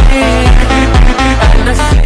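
Loud electronic funk dance track with heavy bass kicks that drop in pitch, about two a second, under layered synth and vocal-sample melody.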